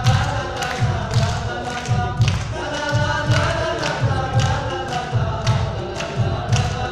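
A group of men singing a Balti folk song together in unison, with hand claps and a low thumping beat about twice a second.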